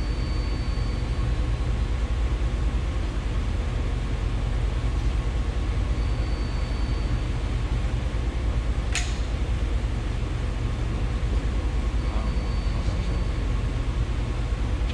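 Steady low hum, with a faint high tone coming and going about every six seconds and a single sharp click about nine seconds in.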